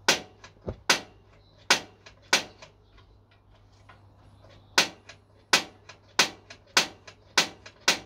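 Barbecue igniter clicking repeatedly to relight a barbecue whose flame has gone out. There are four sharp clicks in the first couple of seconds, a pause, then a steady run of clicks about every half second from about 5 s in.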